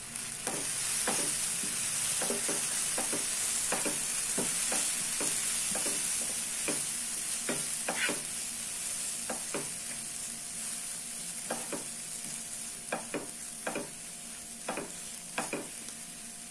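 Onion, tomato and spice powders sizzling in a nonstick kadai while a wooden spatula stirs and scrapes against the pan in irregular strokes. The sizzle grows fainter in the second half.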